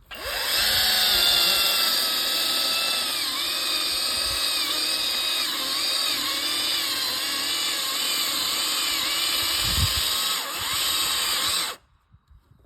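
Kress battery chainsaw cutting into a tree trunk, boring forward underneath the corner in a felling cut: an electric motor whine that starts at once, dips in pitch again and again as the chain bites under load, and cuts off suddenly near the end.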